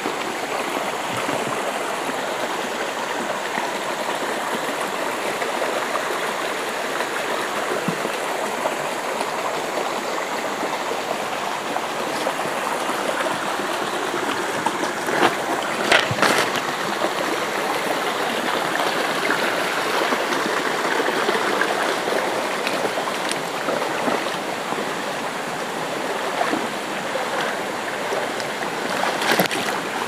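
Shallow forest stream running over rocks, a steady rush of water, with a few brief sharp knocks about halfway through.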